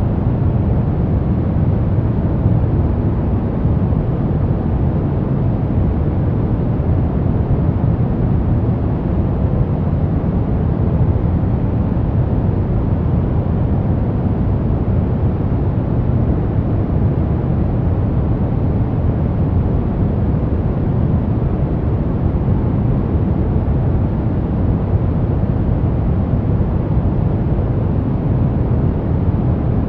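Steady, unchanging white noise for baby sleep, with most of its energy at the low end, so it sounds deep and even rather than hissy.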